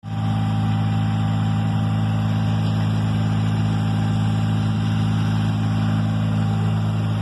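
An engine running steadily at a constant speed, a low even hum that does not rise or fall.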